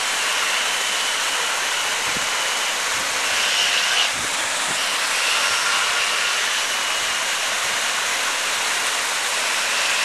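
A steady rushing hiss, with a thin high whine that drops out a few times, from the twin electric motors of a 12-inch mini RC speedboat running across a stream.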